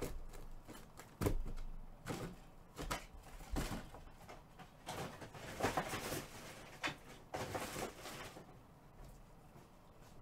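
Trading card boxes and packs being handled: scattered clicks and knocks, with two stretches of rustling about five and seven and a half seconds in.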